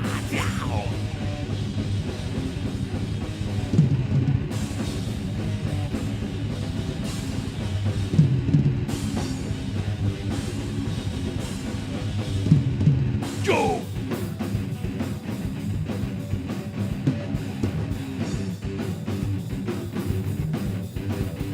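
Live heavy metal band playing an instrumental passage on drum kit, bass and distorted guitars. Falling pitch glides come near the start and again about 13 seconds in, and the drumming turns rapid and dense over the last several seconds.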